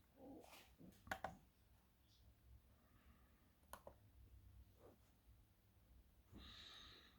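Near silence: room tone with a few faint, short clicks spread through it, the loudest about a second in and just before four seconds. A soft breathy rush comes near the end.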